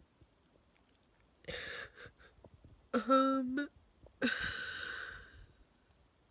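A woman crying during an emotional breakdown. She draws a breath, lets out a short pitched sob about three seconds in, then gives a long breathy exhale.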